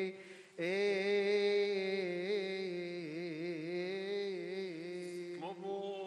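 Coptic liturgical chant: a man's voice sustains a long wordless melisma, with a brief break just after the start and quick ornamented turns in the middle, over a steady low held note.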